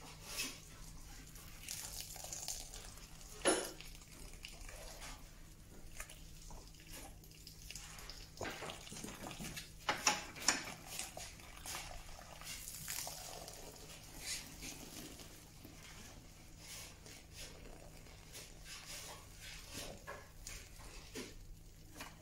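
Wet sawdust being scooped and packed into the mould of a Multimate paper briquette press: irregular scrapes, wet slaps and light clanks of the metal press, with a few sharper knocks, the loudest two close together about ten seconds in.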